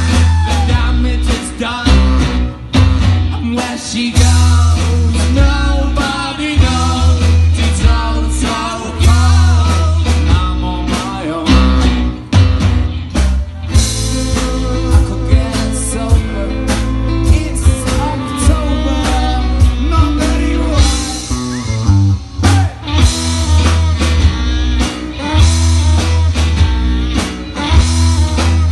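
Live rock band playing through a PA: heavy bass and drums underneath, with electric and acoustic guitars, keyboard and saxophone, in a blues-rock style.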